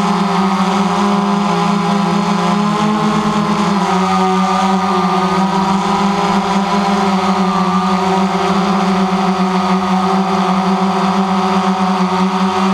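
DJI Phantom quadcopter's electric motors and propellers spinning with a loud, steady buzzing hum, heard from on board the drone; the pitch shifts slightly about three seconds in.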